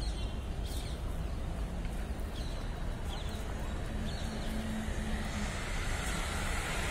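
Steady hum of road traffic, growing a little louder near the end, with a few short high chirps in the first half.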